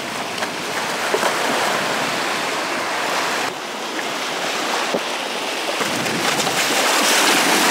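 Small surf washing up the shore, with wind buffeting the microphone. Bare feet splash through the shallow wash.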